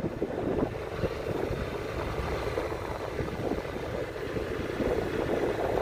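Wind buffeting a phone's microphone: a steady low rumble with a faint hiss above it.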